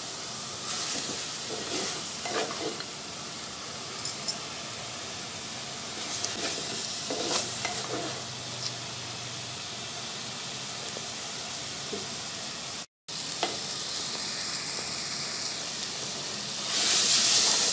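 Chopped vegetable stems and dried fish sautéing in oil in a clay pot, stirred with a wooden spatula: a steady sizzle with occasional scrapes and knocks of the spatula against the pot. The sizzle grows louder near the end.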